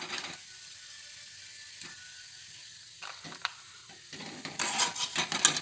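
Raisins frying in a steel kadai with a faint steady sizzle as they are scooped out with a wire slotted ladle. A few single clinks of metal come through the sizzle. Near the end there is a quick run of clinks and scrapes of utensils.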